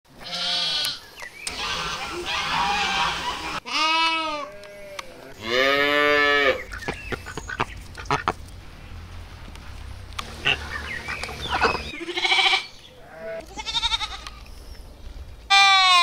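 Lambs bleating, several long wavering calls one after another. About halfway through, softer short calls come in, which fit white domestic ducks quacking. A loud lamb bleat comes near the end.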